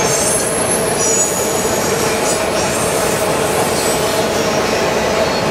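Covered grain hopper cars of a freight train rolling past, giving a steady rumble of steel wheels on rail. Thin high-pitched wheel squeals come and go over it.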